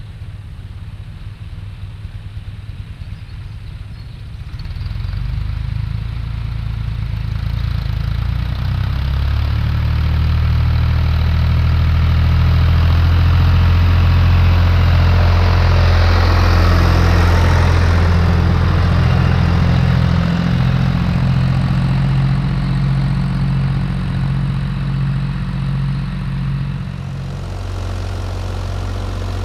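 Tractor engine running steadily while ploughing. It grows louder about four seconds in, is loudest in the middle, then eases off a little near the end.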